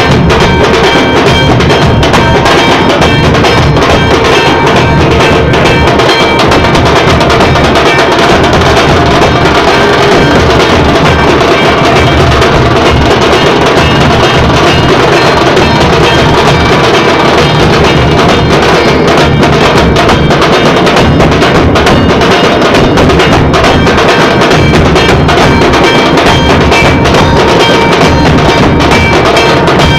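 Loud music with a steady drum beat, dense and unchanging in level throughout.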